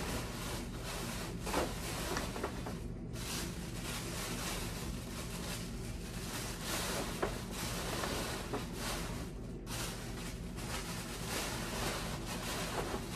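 Tissue paper and a gift bag rustling and crinkling irregularly as a plush toy is pushed into the bag and the tissue is arranged on top.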